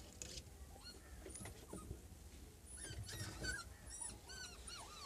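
Siberian husky puppies whimpering in short, high-pitched squeaks, the calls coming thicker from about three seconds in.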